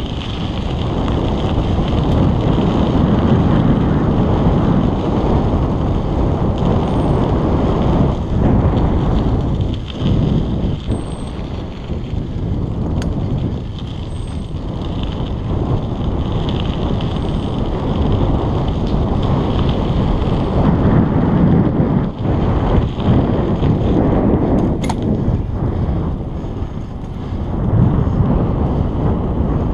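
Wind buffeting the microphone of a bicycle-mounted action camera, together with the tyre and road noise of the bike rolling along, swelling and easing as the ride goes on.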